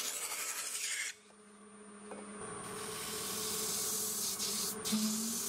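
Oak board ground against a spinning 20-inch sanding disc on a wood lathe, a steady abrasive hiss that breaks off about a second in. Then a rubber sandpaper cleaning stick is pressed into the spinning disc, its hiss swelling over a couple of seconds and holding steady over a faint motor hum.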